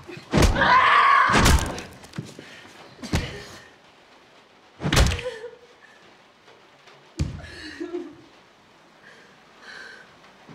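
A person being beaten with a blunt object: about five heavy thuds one to two seconds apart, the first two overlaid with loud screaming, the later blows coming slower with faint sounds between.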